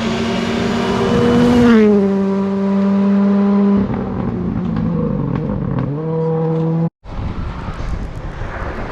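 Rally car engine held at high revs, dropping in pitch at a gear change about two seconds in, then coming off the throttle with the revs falling and briefly picking up again. A sudden cut about seven seconds in switches to another rally car's engine running at lower revs.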